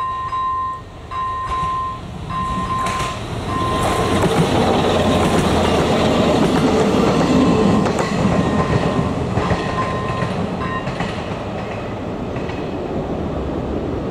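A ČD class 843 diesel railcar passes over a level crossing. A broad rumble with wheel clicks swells over the first few seconds, is loudest in the middle and then slowly fades. The crossing's electronic warning bell dings in a steady on-off rhythm at the start, is drowned out by the train, and stops about ten seconds in.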